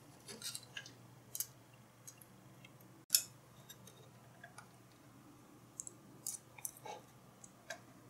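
Faint scattered clicks and scrapes of small tools working on a circuit board as a transistor is desoldered for replacement, with one sharp click about three seconds in. A faint steady hum sits underneath.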